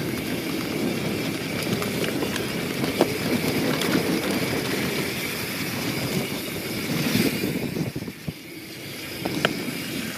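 YT Jeffsy 27 mountain bike ridden fast on a dirt singletrack: knobby tyres rolling on sandy dirt with the bike rattling and a few sharp knocks over bumps. The rear hub's freehub buzzes while the rider coasts.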